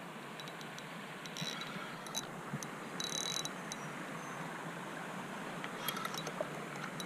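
Faint steady hiss with scattered light ticks and clicks, and a short rasping burst about three seconds in, from a spinning reel and rod being worked while a hooked fish is played.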